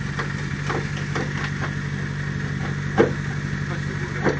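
Honda Civic's D15B7 four-cylinder engine idling steadily through a straight-through 2.5-inch exhaust, with a few light clicks and one sharper knock about three seconds in.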